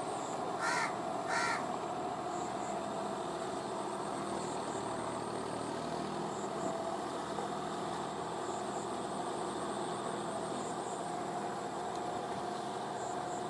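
John Deere 5045D tractor's three-cylinder diesel engine running steadily under load while it puddles a flooded paddy field on cage wheels. Two crow caws sound close together about a second in.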